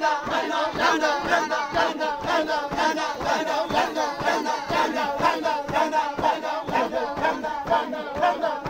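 A group of men and women chanting and singing together as they dance in a line, over a steady beat of low thuds about three a second.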